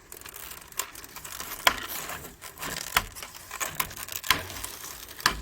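Small hardware parts clicking and rattling in their container as it is handled and opened, with scattered sharp knocks.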